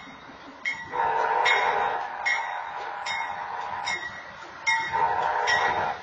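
Train horn sounding at a grade crossing as a BNSF freight locomotive approaches: a long chord blast from about a second in to four seconds, then a shorter one near the end. Under it a sharp ringing stroke repeats a little more than once a second.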